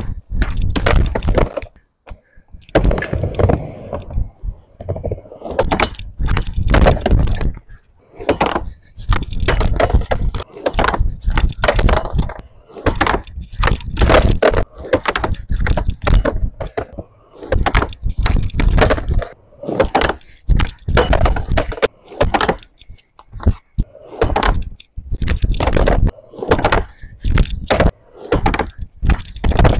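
Skateboard rolling on a wooden quarter pipe, with many sharp cracks and slaps of the board and wheels hitting the ramp during repeated blunt kickflip attempts, in short clips that cut off abruptly one after another.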